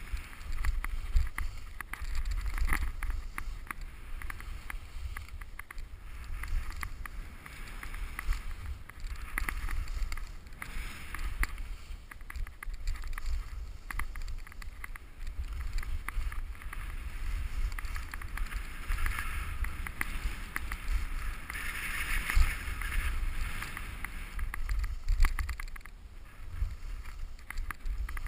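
Skis sliding and carving down a groomed snow piste, a hiss and scrape of the edges on snow that swells and fades, over a low rumble of wind buffeting the microphone of a head-mounted camera.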